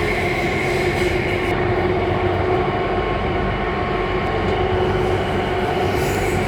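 Alstom Metropolis C830C metro train running, heard inside the carriage: a steady rumble of the wheels and running gear under a level, steady hum.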